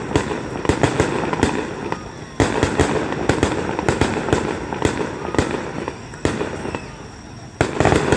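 Aerial firework shells bursting in quick succession: a string of sharp bangs and crackles, each with an echoing tail, with a fresh loud volley about two and a half seconds in and another near the end.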